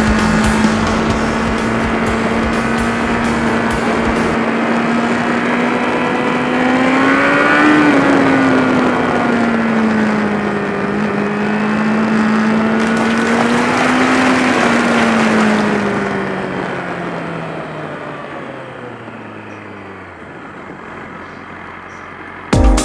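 Motorcycle engine pulling at a steady cruising speed, its pitch rising briefly twice as the throttle opens, then falling away and fading as the rider rolls off and slows. Wind rush on the microphone runs under it.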